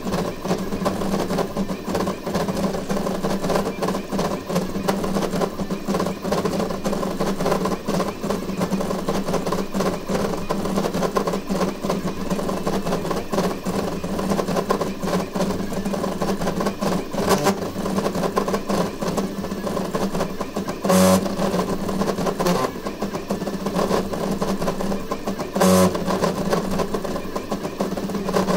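Voron 3D printer running a high-speed print: the stepper motors buzz and whine in rapid, ever-changing bursts as the toolhead darts back and forth at 350 mm/s with very high acceleration, over a steady low hum. Twice, about three quarters of the way through and near the end, a brief louder burst stands out.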